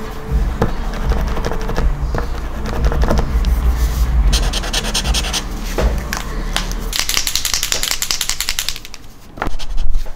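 Posca acrylic paint marker worked against paper: a run of sharp taps and clicks of the tip, with scratchy rubbing strokes about four seconds in and again near the end, over low thuds.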